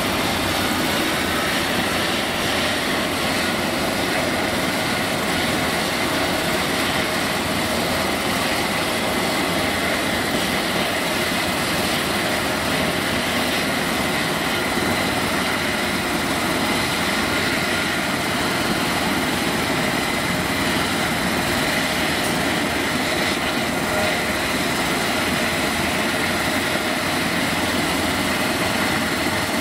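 Airbus H135 helicopter running on the ground with its main rotor turning: a steady high turbine whine over a broad rushing noise from the engines and rotor, holding level.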